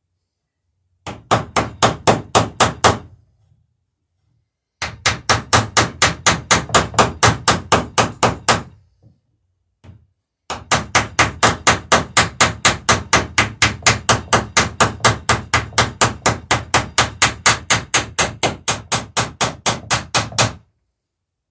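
Hammer striking rivets in a wooden dory's planking: rapid, even blows about five a second, in three runs, the last and longest about ten seconds, peening the rivets over.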